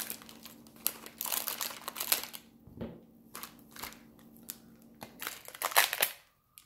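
Trading cards and a foil pack wrapper being handled: a run of short, irregular crinkles and rustles, loudest about six seconds in, then cutting off suddenly near the end.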